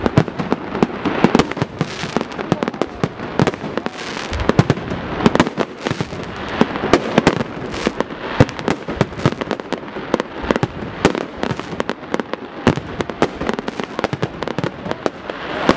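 Fireworks display: aerial shells bursting in a dense, continuous run of bangs and crackles, many in quick succession.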